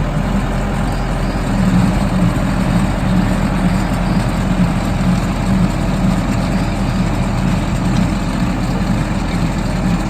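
John Deere tractor engine running steadily while pulling a lawn aerator.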